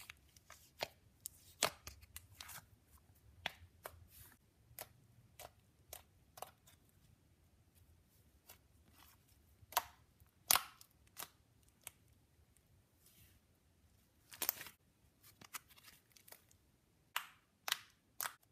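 Soft, buttery slime that feels like it has Daiso clay in it, being poked, pressed and folded by hand, giving irregular sharp clicks and pops. A few louder pops come around the middle and near the end.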